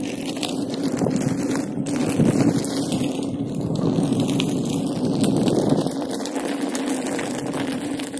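Inmotion V5F electric unicycle riding along a dirt trail: wind rushing on the microphone and the tyre rolling over gravel, over a steady low hum, with scattered small ticks.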